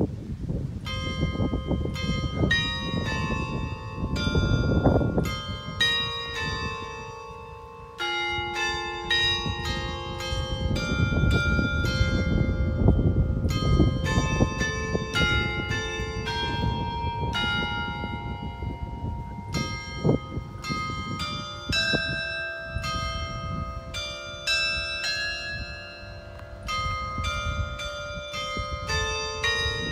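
Church carillon playing a tune: tuned bells struck in quick succession at different pitches, their tones ringing on and overlapping one another.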